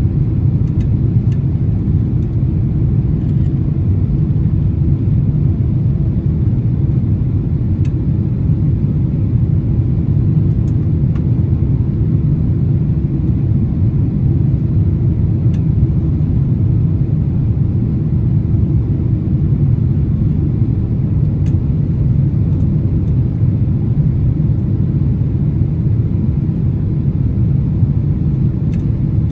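Cabin noise inside a Boeing 767-300 airliner: a steady low rumble of jet engines and rushing airflow, with a few faint ticks.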